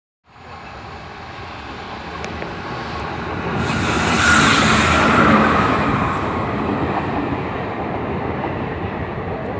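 WAG-5 electric locomotive running past at close range on an arriving passenger train, followed by its coaches rolling by with a steady rumble of wheels on rail. The noise builds, is loudest about four to five seconds in as the locomotive passes, then eases as the coaches go by.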